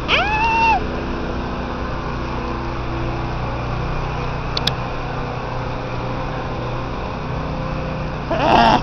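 Steady low hum of city street traffic. A short pitched sound rises and holds in the first second, and a brief burst of curving pitched sound comes near the end.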